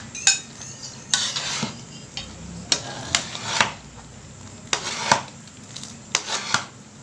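Cooking utensils stirring noodles in a thick broth in an aluminium wok, with irregular scrapes and clinks against the pan about every half second.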